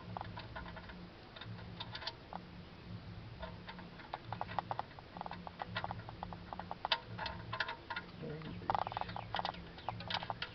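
Irregular small clicks and taps of metal parts and tools being handled, as a part is fitted back in by hand during an oil change.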